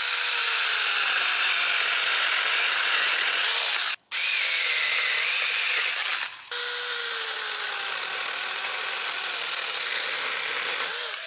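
Battery-powered 20-volt mini chainsaw (Alloyman 6-inch) running and cutting through tree branches. Its motor whine drops in pitch as the chain bites into the wood, and the sound breaks off briefly twice, about four and six and a half seconds in.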